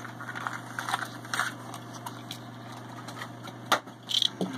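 Steady low hum with small clicks and rustles of plastic blister-pack toy packaging being handled, and one sharp click about three-quarters of the way through.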